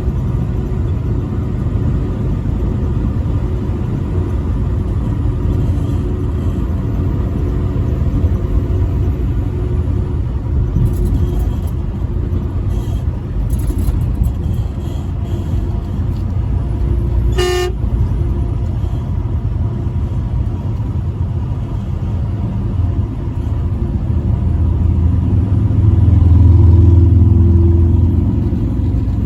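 Semi truck driving on the highway with a steady low engine and road rumble, and one short blast of the truck horn a little past halfway. The rumble swells louder near the end.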